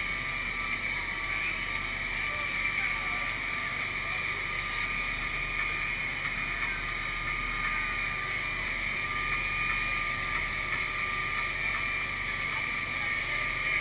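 Amphibious truck under way on a river: a steady mix of motor noise and water rushing and splashing along the hull, with a thin steady high tone running through it.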